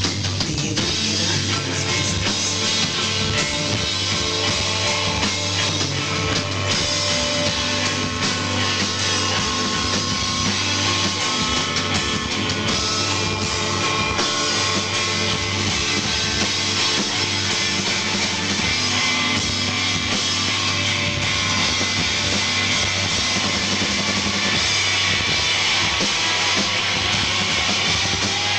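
A rock band playing live: electric guitars, bass and drum kit in a steady, driving instrumental passage.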